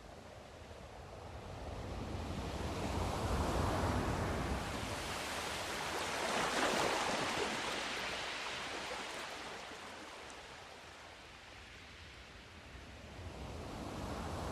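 Sea surf: a wave builds over the first few seconds, is loudest about seven seconds in as it breaks and washes, then ebbs away, and the next wave starts to build near the end.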